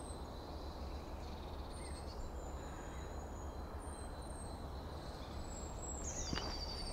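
Quiet outdoor ambience: a steady low rumble and hiss, with a few faint, short, high chirps of small birds and one brief falling call near the end.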